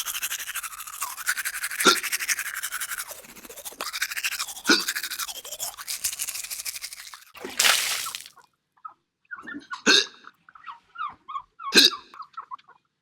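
Toothbrush scrubbing teeth, a fast scratchy brushing sound effect broken twice by a sharp short sound, stopping about seven seconds in. A brief rush of noise follows, then scattered small clicks and a couple of sharp short sounds.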